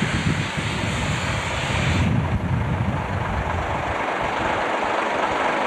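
Steady running noise of a heavy lorry under way on the road, engine and road rumble together. About two seconds in the sound changes abruptly, and the deep rumble thins out a little later.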